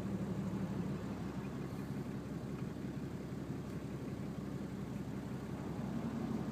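Nissan Patrol GQ's RD28 2.8-litre straight-six diesel idling steadily, heard inside the cabin, breathing through a 3-inch exhaust with no mufflers.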